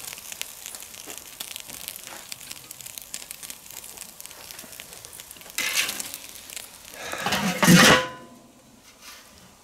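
Meat sizzling and crackling on the grate over the glowing charcoal of a Weber kettle grill. About seven seconds in, the kettle's steel lid is put on with a loud metallic clatter, and the sizzle drops away.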